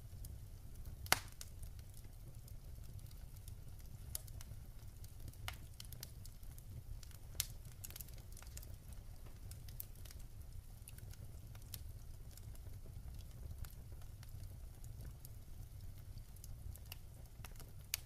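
Wood fire crackling in a fireplace: scattered sharp pops and snaps over a steady low rumble, the loudest pop about a second in.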